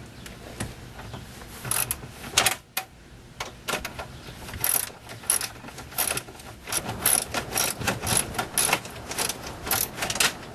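Ratchet on a 10 mm socket wrench clicking in quick runs as it backs out a screw that holds the DVD player unit in place. The clicking starts about two seconds in.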